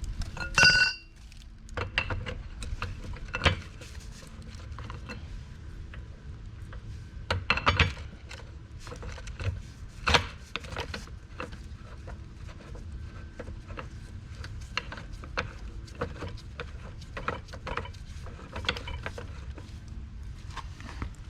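Scattered clicks, knocks and metal clinks of hand work on a hydraulic floor jack and tools, with a short high squeak just under a second in.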